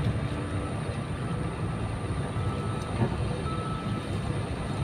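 Wind buffeting the microphone: a steady, unpitched low rumble, with a brief click about three seconds in.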